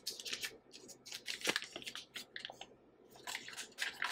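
Butter's paper wrapper crinkling as it is peeled open, with a silicone spatula squishing and scraping soft butter off the paper: irregular crackly rustles in several short spells.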